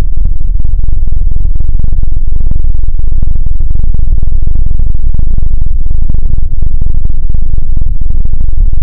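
A loud sound effect slowed far below normal speed, playing at near full volume as a dense, distorted low rumble with most of its weight in the deep bass.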